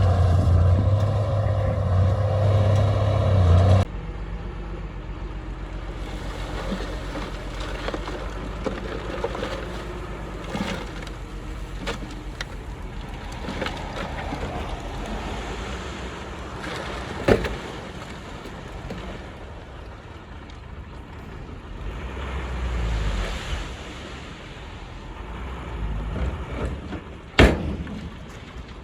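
A heavy diesel engine of earthmoving equipment running loudly and steadily, cut off suddenly about four seconds in. Then a quieter engine rumble with a few sharp knocks, the loudest two about two-thirds of the way through and near the end.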